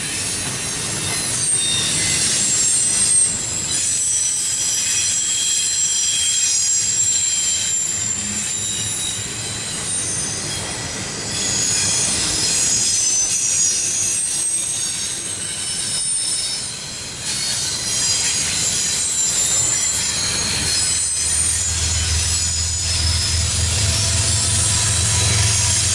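CSX double-stack intermodal container cars rolling past, wheels squealing in several high, held tones over the rumble of the train. About 21 seconds in, the low drone of a diesel locomotive's engine comes in and grows louder.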